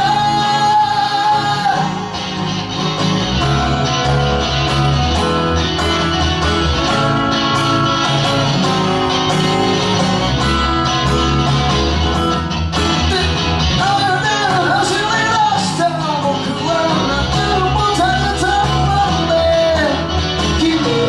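Live band playing a rock song: strummed acoustic guitar with electric guitar and electric bass, and a melody line on top that bends and wavers in pitch through the second half.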